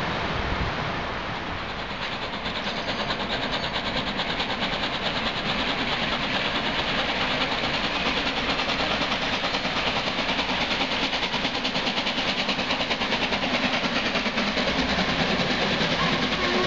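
Two LMS Black Five 4-6-0 steam locomotives, 45407 and 44871, double-heading toward the listener, their exhaust beats a rapid, even chuffing that grows louder. For the first two seconds, the coaches of another steam-hauled train are heard rolling away over the rails.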